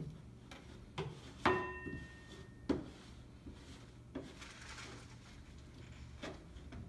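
Handling noise on a workbench: about five scattered knocks and clatters, one about one and a half seconds in with a short metallic ring, over a steady low hum.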